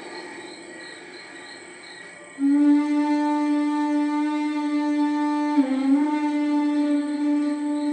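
Television soundtrack music: after a quiet couple of seconds, one long held note comes in, dips briefly in pitch a little past halfway, then is held again. It is heard through a television speaker.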